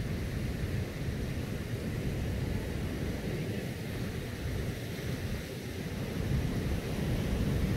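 Wind buffeting the microphone, a steady low rumble, with surf washing on the beach behind it.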